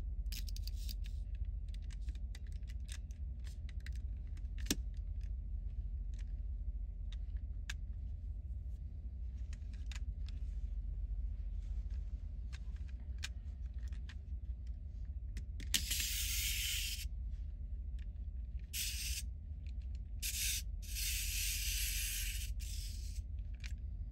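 Plastic toy parts clicking and scraping as they are handled, with a few short hissing stretches about two-thirds of the way in, over a steady low hum.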